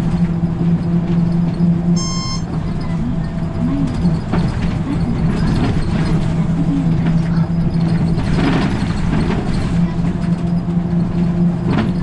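Route bus's diesel engine running steadily as the bus drives along, heard from inside the cabin near the driver's seat. A short electronic beep sounds about two seconds in, and a brief rush of noise comes a little past the middle.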